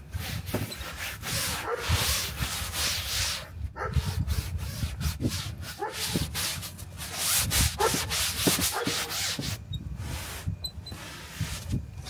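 Soft-bristled upholstery brush scrubbing a wet, soapy ultra-leather (vinyl-like) seat cushion in quick back-and-forth strokes, with a few short pauses.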